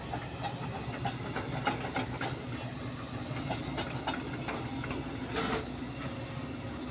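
Kobelco SK130 excavator's diesel engine running steadily under work, with repeated knocks and clanks from the grapple and a brief hiss about five and a half seconds in.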